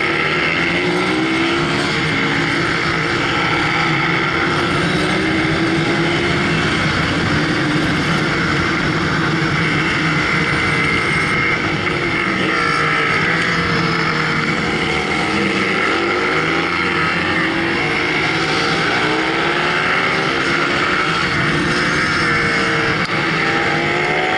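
Motorcycle engine heard from an onboard camera, revving up and down over and over as the bike accelerates and slows through a run of corners, with steady wind and road noise.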